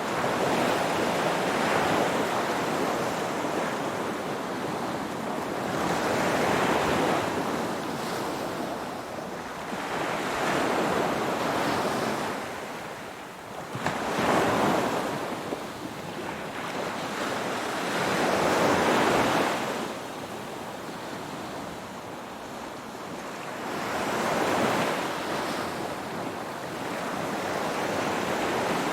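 Ocean waves breaking and washing back, the surf noise swelling and falling away about every four to six seconds.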